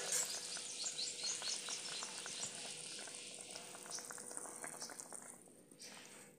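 Thin sugar syrup bubbling and crackling in an iron kadhai around paneer discs for rasmalai. The bubbling dies away about five seconds in as the pan is taken off the fire.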